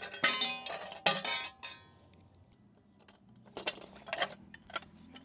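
Chrome motorcycle exhaust pipes and their heat-shield clamps clinking together as they are handled. Two ringing metallic knocks in the first two seconds are followed by a quieter stretch, then lighter clicks and taps.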